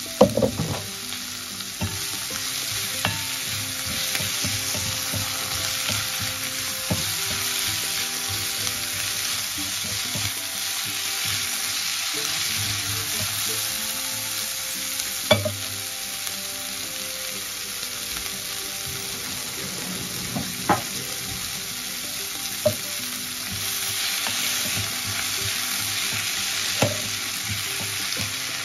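Shredded cabbage and potatoes sizzling steadily as they fry in oil in a stainless steel pan, being stirred with a wooden spatula, with a few sharp knocks scattered through.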